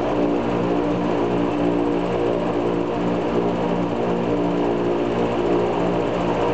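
Il-14's left Shvetsov ASh-82T radial piston engine running at a steady speed during a ground run-up, heard from inside the cockpit.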